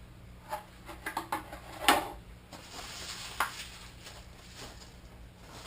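Kit parts and packaging being handled: a few light knocks and clatters, the loudest about two seconds in, with a faint steady hum beneath.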